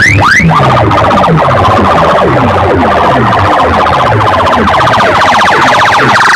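Very loud electronic siren effect blasted through a large DJ loudspeaker sound system: quick rising whoops at first, then from about half a second in a fast warbling tone over repeated falling bass sweeps.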